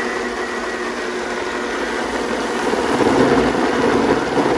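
Countertop blender running steadily, its blades puréeing microwave-softened frozen mango into a smooth purée. The motor grows louder about three seconds in.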